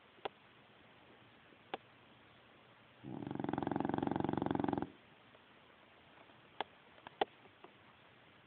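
A sleeping dog snoring: one long snore of about two seconds with a fast flutter, about three seconds in. A few short sharp clicks come before and after it.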